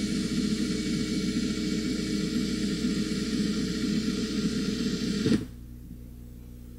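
Cordless drill running steadily at speed, spinning three magnet wires clamped in its chuck to twist them together into a trifilar bundle. It stops abruptly about five seconds in, leaving a faint low hum.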